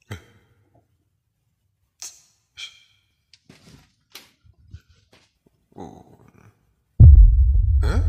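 A few faint breaths and small rustles, then about seven seconds in a loud low rumble starts suddenly and keeps going.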